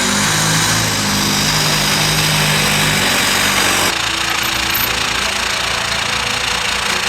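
A vehicle engine running, with a sudden cut about four seconds in to another stretch of engine noise.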